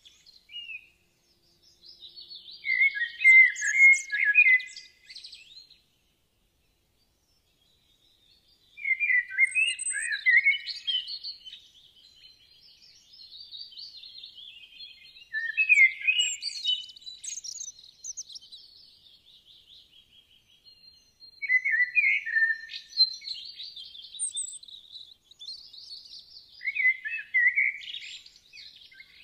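Birds chirping and singing in quick, high-pitched phrases, with a pause of a couple of seconds about a quarter of the way in.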